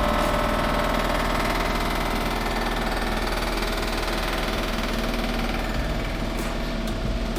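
A machine running steadily with a constant hum and several held tones.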